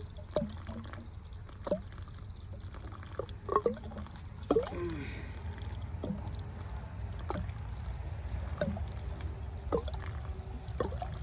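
Water trickling and pouring out of a cut PVC water line as it drains, with scattered short clicks and chirps over a steady low rumble.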